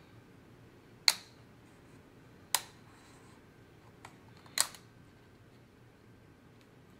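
MacBook Pro keycap and its scissor mechanism clicking: three sharp clicks one to two seconds apart, with a fainter tick shortly before the third.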